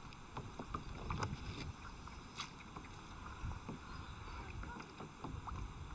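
Faint lapping and splashing of water against a plastic kayak hull, with a few light knocks, as a hooked chub is played beside the boat and the landing net goes in.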